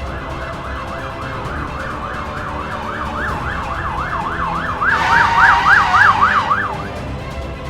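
Emergency vehicle siren in a fast rising-and-falling yelp, about three sweeps a second. It grows louder about five seconds in and cuts off shortly before the end.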